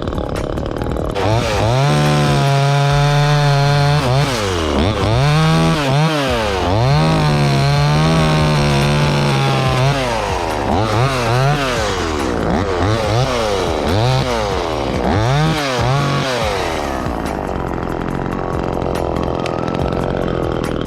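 Chainsaw revving up about a second in and held at high revs, as in a cut, dipping and picking back up a couple of times. Then a run of quick throttle blips, before dropping back to a steady idle near the end.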